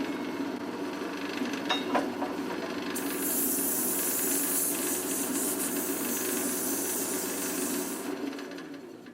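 Power tool motor running steadily while something is abraded. A loud hissing of abrasion joins about a third of the way in, stops a second before the end, and the motor then winds down.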